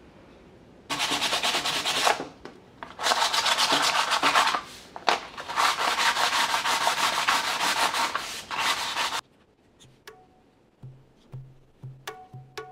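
Sandpaper rubbed over the fibrous surface of a dried palm frond base, giving a scratchy sanding noise in three spells with short breaks between them. It stops near the end, where light percussive music with a low drum comes in.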